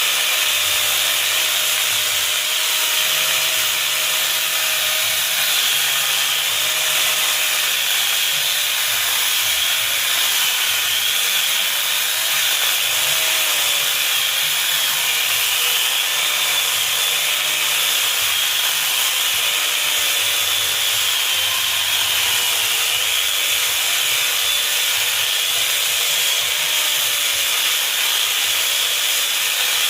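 Mini chainsaw running steadily as it cuts through wood, its whine wavering slightly in pitch as the load changes.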